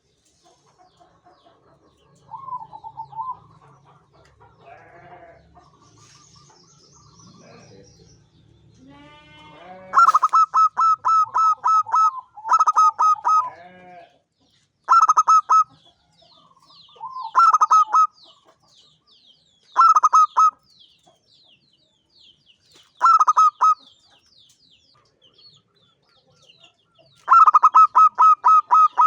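Zebra dove (perkutut) singing: loud phrases of rapid, staccato notes, each phrase under a second long and repeated every two to three seconds from about ten seconds in, with quieter calls before. Faint high chirping of other birds runs underneath.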